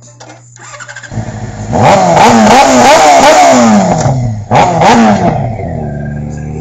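Yamaha YZF-R6 sportbike's inline-four engine revving hard as the bike pulls away, its pitch rising and falling, with a brief dip just after four seconds in before it revs again and then fades as the bike rides off.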